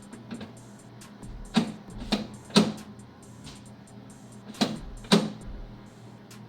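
Sharp mechanical clicks from a Jeep Cherokee XJ's interior door lock mechanism being worked by hand: three about half a second apart, then two more a couple of seconds later.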